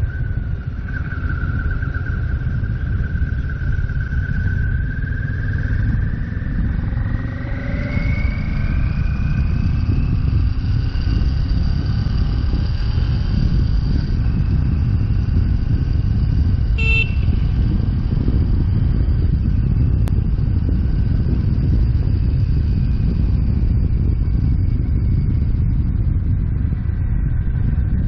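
CFMoto 650GT's 649cc water-cooled parallel-twin engine running under way, with wind rushing over the microphone. A whine in the running note rises in pitch a few seconds in as the bike speeds up, then holds steady.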